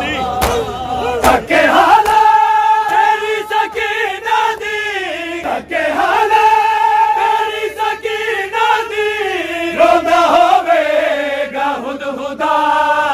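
Men's voices chanting a Punjabi noha in long held, wavering notes. A few sharp slaps of hands on bare chests (matam) come in the first two seconds.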